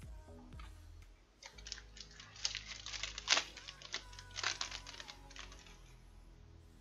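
Baseball trading cards being handled and dealt onto piles by hand: a quick run of papery clicks and rustles that starts about a second and a half in and lasts about four seconds.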